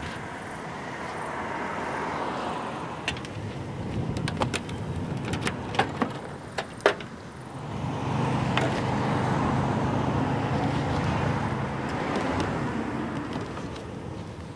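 Road noise of a vehicle going by, swelling and fading twice, with a run of sharp metallic clicks and knocks in between from the car's trunk and tools being handled.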